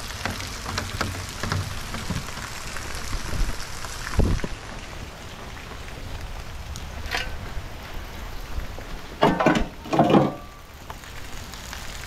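Steady rain falling, drops pattering and ticking on hard surfaces close to the microphone. There is a low thump about four seconds in and a couple of loud knocks or rustles near the end.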